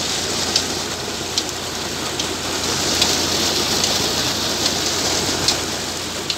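Water gushing steadily from a tubewell pump's outlet pipe and splashing into a concrete tank. Under it is a steady low hum from the Massey Ferguson 260 tractor engine driving the pump, and a few sharp ticks come at irregular moments.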